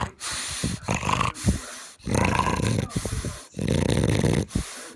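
French Bulldog snoring: a run of loud snores, each about a second long with short gaps between, rattling in the throat.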